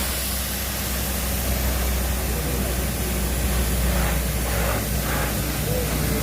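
A machine running: a steady low hum under a loud, even hiss.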